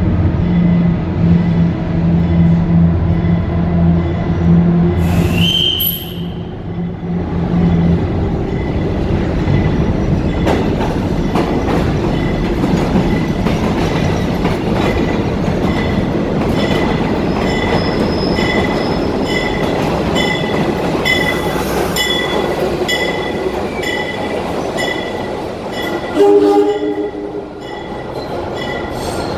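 Mantis work locomotive and its train of flatcars passing through a subway station without stopping. At first the locomotive's steady low drone dominates, with a brief rising squeal; then the cars roll by with clicking wheels over rail joints and repeated high-pitched wheel squeal. A short horn blast sounds near the end.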